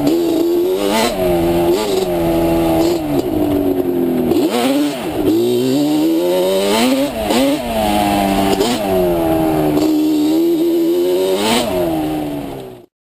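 Ported Yamaha Banshee ATV's twin-cylinder two-stroke engine revving up and down over and over as the throttle is worked, with one long drop and climb about four to five seconds in. The sound cuts off suddenly near the end.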